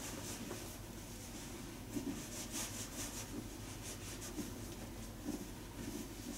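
Soft rustling of a towel blanket being pulled and smoothed over a person lying on a massage table, with a few brief swishes about two to three seconds in.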